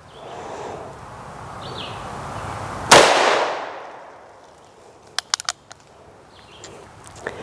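A single shot from a Ruger Blackhawk .357 Magnum single-action revolver about three seconds in: one sharp, loud report with echo trailing off for about a second. A few quick, sharp clicks follow about two seconds later.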